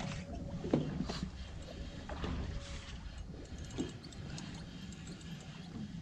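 Low steady rumble aboard a small fishing boat, with a few scattered light knocks.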